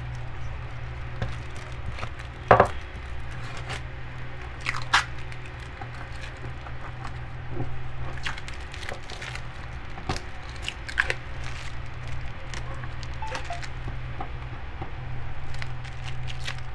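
Clear adhesive tape being pulled up off a wooden tabletop and crumpled by hand: irregular crinkles and sharp crackles, the loudest about two and a half and five seconds in. A steady low hum runs underneath.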